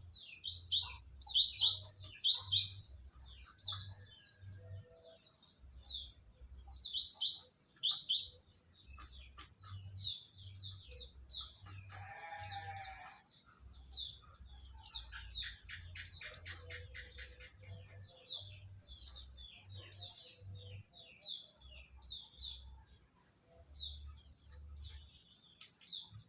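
Oriental magpie-robin (kacer) singing: a fast series of sharp, high chirping notes, with two loud runs about a second in and about seven seconds in, and softer scattered phrases the rest of the time. A steady thin high whine sits under the song throughout.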